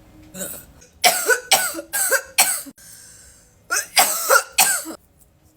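A person coughing hard after a long vape hit held until the device blinks: two runs of hacking coughs, about four each, with a short pause between.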